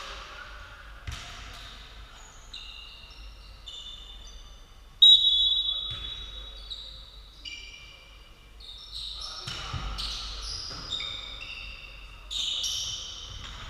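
Volleyball play on a hall court: sharp thuds of the ball being struck and landing, and many short high squeaks of shoes on the court floor. The loudest sound is one sudden high squeak about five seconds in.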